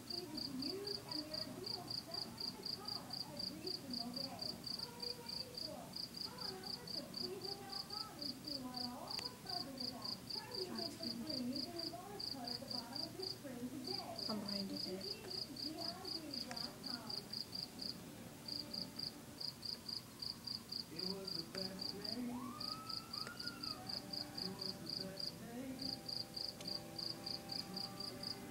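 Cricket chirping in an even, high-pitched rhythm of about four chirps a second, pausing briefly a few times.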